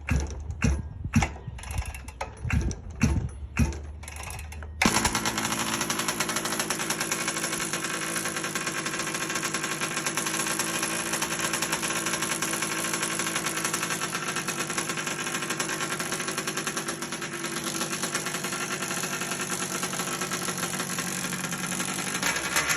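Large-scale gas RC car's two-stroke engine being started: a run of short, uneven strokes as it is cranked over, then it catches about five seconds in and runs steadily.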